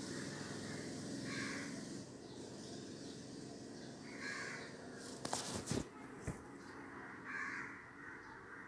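Small kitchen knife cutting a spiral into a raw potato threaded on a wooden skewer, with a few sharp clicks of the blade against the skewer and plastic cutting board a little past the middle. A bird calls faintly about every three seconds.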